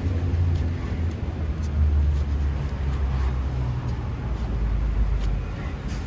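Low, steady rumble of a motor vehicle's engine running close by in street traffic, its pitch drifting slightly, with a few faint clicks of a cleaver cutting through pancake onto a wooden board.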